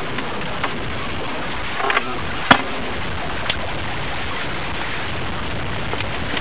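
Steady wind noise across the microphone in an open boat, with one sharp knock about two and a half seconds in and a few fainter taps.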